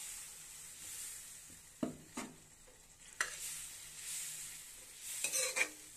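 Spiny gourd and masala sizzling in an iron kadhai as water is added, while a steel spatula stirs and scrapes against the pan, with a few sharp scrapes and clinks about two seconds in, again around three seconds, and a cluster near the end.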